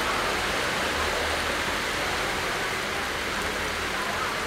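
Heavy rain falling steadily onto a flooded street, an even, continuous hiss.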